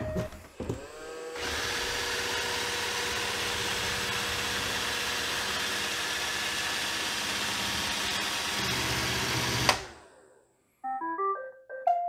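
iRobot Roomba 675 robot vacuum running as it drives to its charging dock: its motor spins up with a rising whine about a second in, then holds a steady whir. The whir cuts off with a click near the end as the robot docks, and a moment later it plays a short tune of beeping tones.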